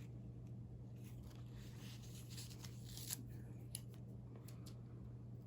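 Faint rustling and light ticks of paper pages being handled in a binder, over a steady low hum.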